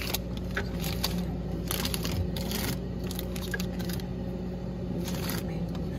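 Plastic Ziploc freezer bag full of frozen mango slices being handled and shifted on a freezer shelf: irregular crinkling and rustling with a few light knocks, the loudest stretches about two seconds in and near the end, over a steady low hum.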